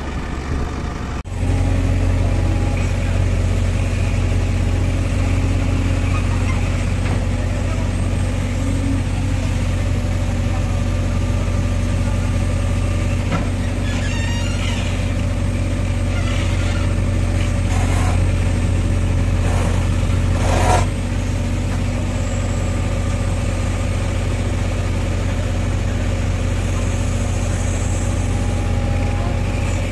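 JCB 3DX backhoe loader's diesel engine running steadily under load as the backhoe digs, heard close up from the operator's seat. A few short, sharp noises from the digging break in around the middle, the loudest about two-thirds of the way through.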